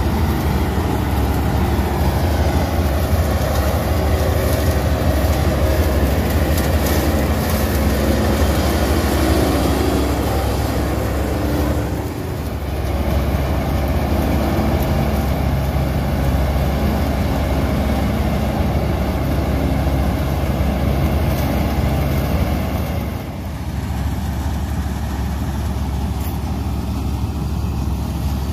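Malkit combine harvester running steadily while harvesting, a continuous loud engine drone with a strong low hum. The sound drops briefly about twelve seconds in and again about twenty-three seconds in.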